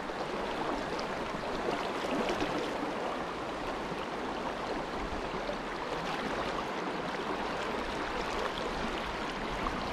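Fast-flowing river current rushing steadily around a wading angler.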